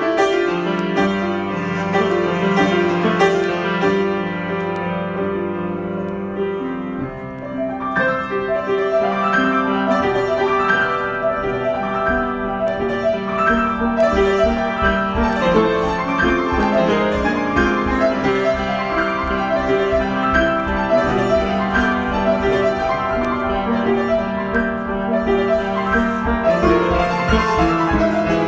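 Solo piano improvisation: sustained chords ringing over one another, with a brief lull about a quarter of the way in. From about 12 s a quick repeated pattern of low bass notes, roughly four or five a second, runs under the chords.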